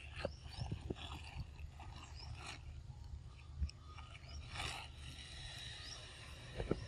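Macaques handling fruit and moving among leaves: scattered small clicks, scrapes and rustles, with a louder rustle a little past the middle. Short high chirps sound now and then over a low steady rumble.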